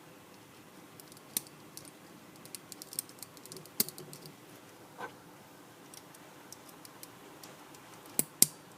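Small plastic Beyblade parts clicking and tapping together as they are handled and fitted by hand. The clicks come irregularly, thickest a few seconds in, with two sharp louder clicks in quick succession near the end.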